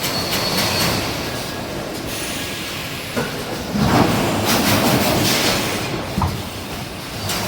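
Wire mesh panel production machinery running: a steady mechanical noise with a few sharp clanks, growing louder for a second or two about halfway through.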